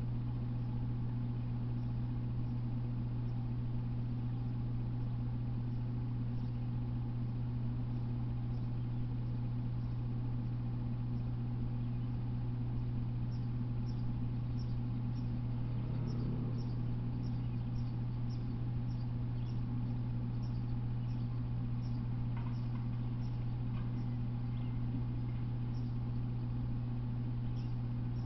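Steady low hum, with short high chirps repeating about once a second through the second half.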